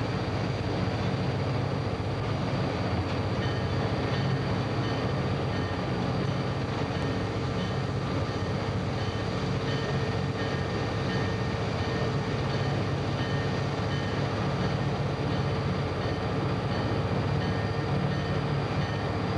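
Steady running noise inside the cab of a moving diesel freight locomotive: engine drone and wheels rolling on the rails, with a constant hum underneath.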